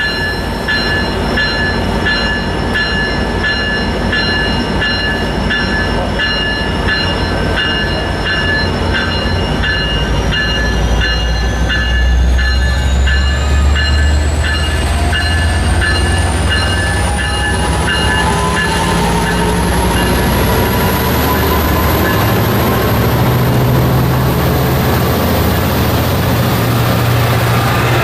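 A diesel-electric locomotive pulling a train out and gathering speed: low engine rumble and a whine that climbs steadily in pitch. A crossing bell rings with evenly spaced strokes through the first two-thirds, then stops.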